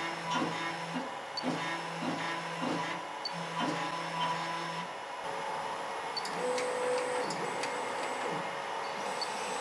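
StoneFlower 3.0 clay 3D printer's stepper motors running in short jog moves. Three steady low hums of about a second and a half each come as the Z axis steps up, then a single higher whine of about a second as the head travels along Y. Faint ticks fall between the moves.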